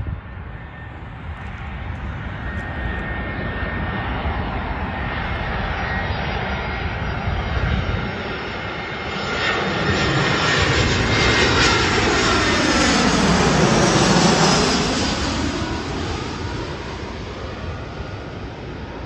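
easyJet jet airliner flying over on its landing approach: the jet engine noise builds to its loudest about two-thirds of the way through, with a sweeping falling tone as it passes, then fades.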